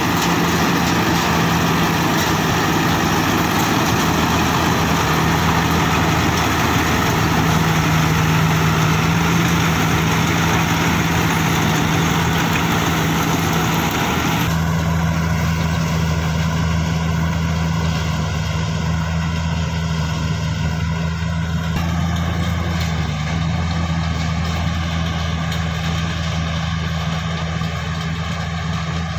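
Mahindra combine harvester running steadily as it cuts and threshes paddy: a diesel engine hum under the rattle and whir of the threshing machinery. About halfway through, the sound suddenly becomes duller and less noisy, as though heard from farther away.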